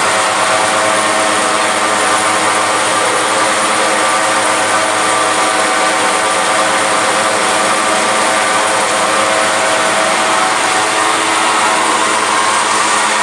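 Mini blast furnace for smelting lead battery scrap, running with a steady mechanical roar: an even rushing noise with several fixed tones that does not change.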